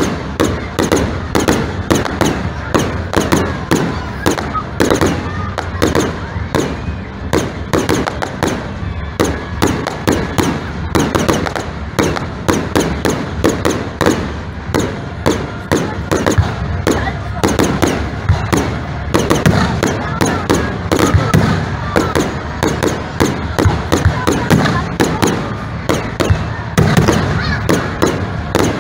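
Fireworks display: aerial shells bursting in a rapid, unbroken barrage of bangs and crackles, several each second.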